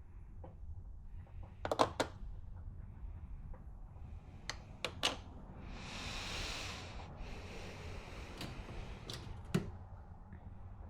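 Hand tools being handled: several sharp clicks and knocks, some in quick pairs, with a stretch of rustling about six seconds in.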